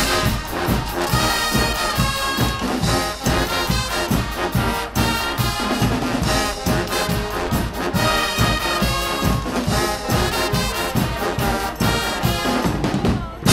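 Guggenmusik brass band playing live: tubas, trumpets and trombones loud over a steady beat of drum kit and cymbals, with a brief break near the end.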